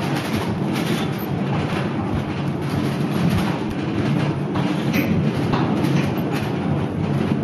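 Small narrow-gauge steam locomotive Bronllwyd running, heard from right behind its vertical boiler on the footplate: a steady rattling rumble with scattered sharper clanks.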